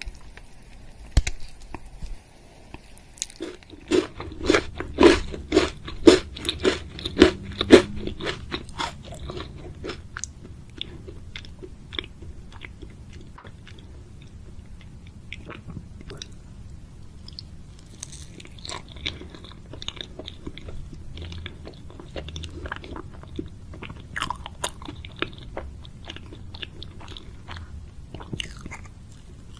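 Close-miked eating sounds of chocolate: sharp cracking and crunching, loudest and most rhythmic for several seconds early on, then quieter, softer chewing of a chocolate roll cake.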